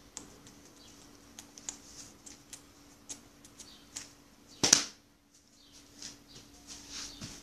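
Handling noise on a phone microphone: scattered light clicks and rustles, with one louder knock about two-thirds of the way through, over a faint steady hum.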